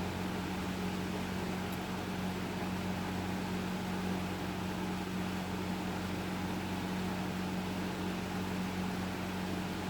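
2001 Hampton Bay Carriage House 52-inch five-blade ceiling fan running: a steady low motor hum under an even rush of air.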